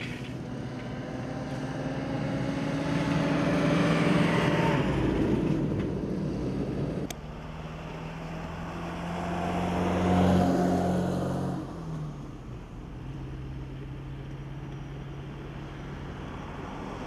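Motor vehicles going past, one about four seconds in and another about ten seconds in, each growing louder and then dropping in pitch as it passes. A steady engine hum runs underneath near the end.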